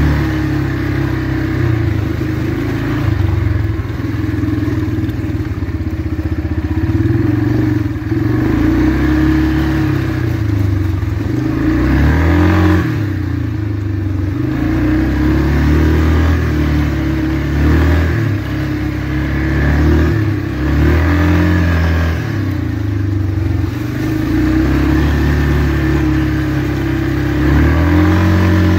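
2004 Yamaha Kodiak 450 ATV's single-cylinder four-stroke engine running while riding, its pitch rising and falling again and again as the throttle is opened and eased off.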